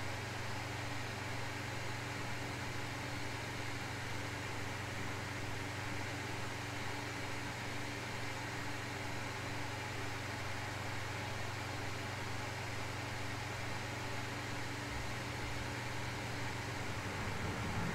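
Steady home-office ambience: an even hiss of white/pink noise over a low, constant hum. Near the end a car outside starts to swell in, the sound growing louder and deeper.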